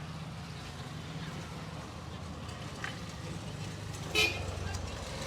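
Street traffic with a steady low hum of vehicle engines, and one short horn toot about four seconds in.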